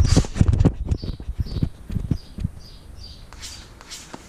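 Rustling and knocking as a handheld action camera is moved and set down low, then a small bird chirping repeatedly, short high notes about twice a second, with a few light knocks.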